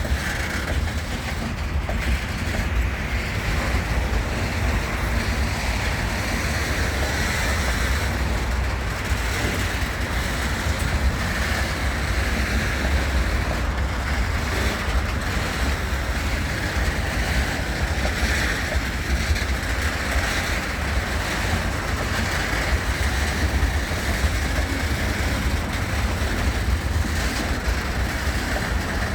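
HŽ series 2041 diesel locomotive working with a freight train: a steady low rumble with no distinct knocks or pitch changes.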